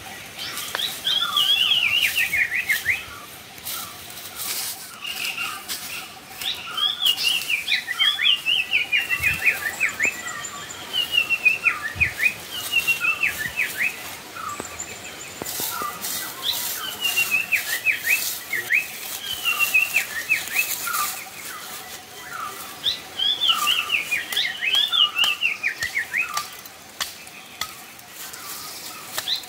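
A bird singing the same short phrase over and over, each a quick run of notes falling in pitch, repeated every few seconds. Scattered short knocks and scrapes come between the phrases.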